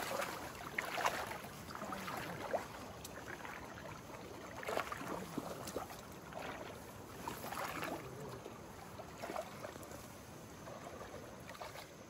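Creek water sloshing and swishing irregularly around legs wading through knee-deep water, with a few louder splashes.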